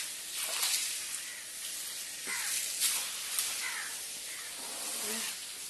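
Water jetting at high pressure from the open end of a loose 1.25-inch pipe fed by a submersible pump: a steady hissing spray with intermittent splashes as the free pipe whips about on wet ground.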